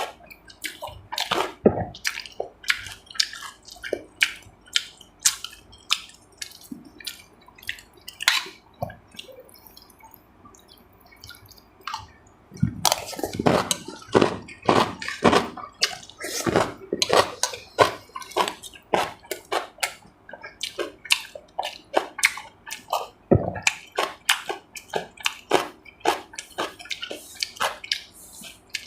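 Close-up wet eating sounds: chewing, lip smacking and slurping, heard as a quick, irregular run of short clicks with a quieter lull about ten seconds in.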